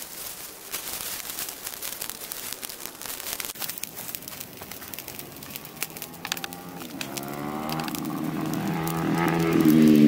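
A small fire of dry grass and twigs crackling with many sharp snaps as it catches and flares up. From about seven seconds in a low drone joins and grows louder, becoming the loudest sound near the end.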